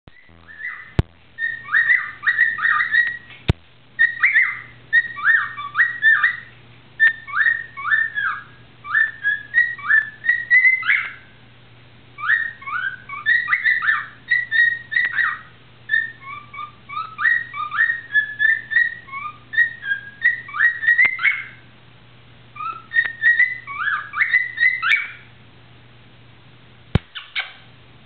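Cockatiel whistling its song: phrases of quick rising and falling whistled notes, repeated in bouts with short pauses between them.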